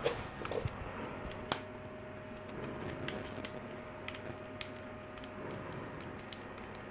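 Light clicks and taps of small metal parts being handled, with one sharper click about one and a half seconds in: the rotary tool's collets and collet nut being picked up and fitted.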